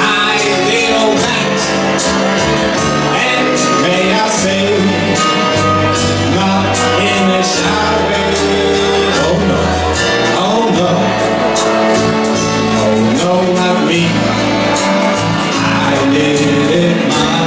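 A man singing into a microphone over loud backing music with bass and a steady drum beat.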